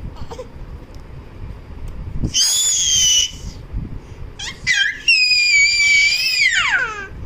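A baby's very high-pitched squeals: one held squeal of about a second, then a few short chirps and a longer squeal of about two seconds that slides down in pitch at the end.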